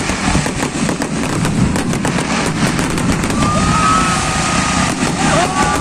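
Fireworks exploding in rapid succession: many sharp cracks and pops over a continuous low rumble. A few high, wavering tones rise and fall over the second half.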